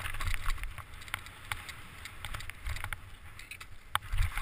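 Skis running fast through deep powder snow, a steady rushing hiss with wind buffeting the helmet camera's microphone. Scattered clicks and knocks, one sharp knock near the end.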